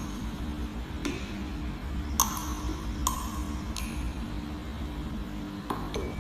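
Glassware clinking: a few sharp clinks spaced about a second apart, each ringing briefly, over a steady low hum.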